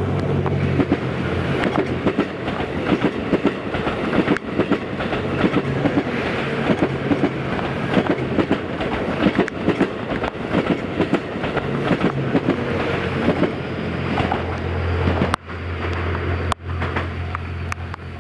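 Series 87 Twilight Express Mizukaze diesel train passing close by: a steady low engine hum under a dense, continuous clatter of wheels over the rails. The sound breaks off sharply for a moment twice near the end.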